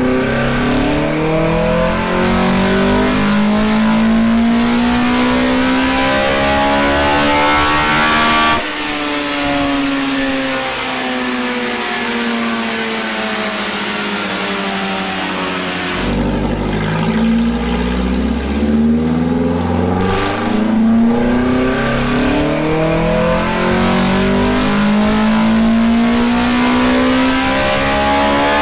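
Toyota 4A-GE twin-cam four-cylinder with 52 mm individual throttle bodies and open velocity stacks, pulled at full throttle on a dyno with its revs climbing steadily. About eight seconds in it lifts off and winds down. About halfway through it opens up again and climbs through the revs until near the end.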